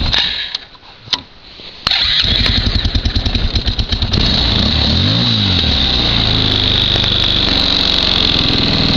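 2005 Arctic Cat 300 ATV engine running shortly after a cold start: the engine sound drops away just after the start, then comes back suddenly about two seconds in. About five seconds in it revs up and back down once, then settles to a steady idle.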